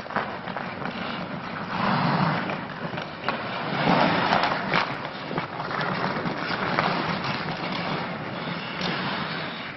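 Ice hockey skates scraping and carving across the ice, with a few sharp knocks of sticks and puck near the middle.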